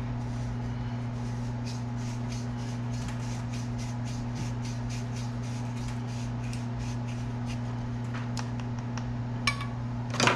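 Rapid rasping strokes, about three or four a second, of a reamer being worked through the bore of a fishing rod handle to enlarge it for a snug fit on the blank, over a steady low hum. Two sharp clicks near the end, the second the loudest.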